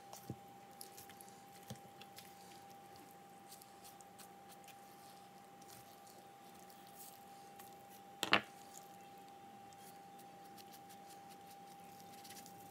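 Quiet wet squishing and small clicks of a knife cutting through a raw whole chicken on a plastic cutting board, with one sharper knock about eight seconds in. A faint steady hum lies underneath.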